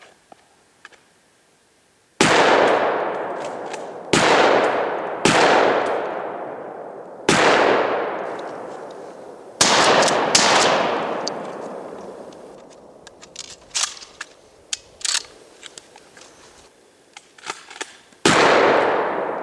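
Pump-action 12 gauge shotgun firing seven shots, five in quick succession, then two more close together, and one last near the end; each shot rings out in a long fading echo. Between the last two shots comes a string of sharp clicks and clacks as shells are loaded and the pump action is worked.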